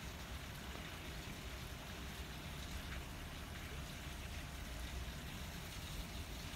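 Steady rushing of a shallow stream flowing in a concrete-walled channel, an even hiss over a low rumble.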